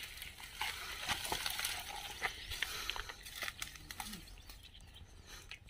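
Dry scrub and thorny branches rustling and crackling as people push through them on foot, with irregular twig snaps and footsteps on dry ground, thinning out near the end.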